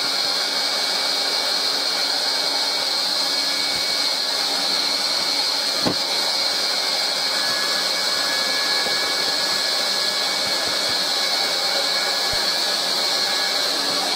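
Hot-air plastic welding gun blowing a steady hiss while the plastic filter box is tacked together, with a single sharp tap about six seconds in.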